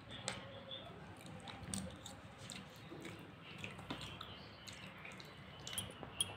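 Faint chewing of a mouthful of chole and rice, with scattered small clicks of a metal spoon against the plastic tray.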